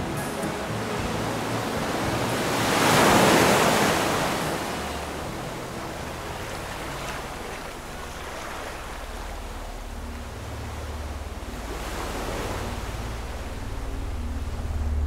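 Sea waves washing, with a loud surge about three seconds in and a smaller one near twelve seconds. A low rumble builds over the last few seconds.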